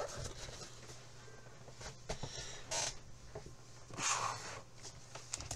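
Handling of a cardboard box and its contents: short rustles and scrapes as the box and items are moved about, over a faint steady low hum.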